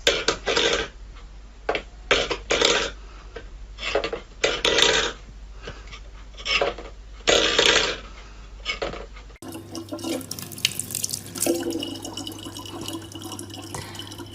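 Water splashing in irregular bursts. About nine seconds in, a cut to running water over a steady low hum.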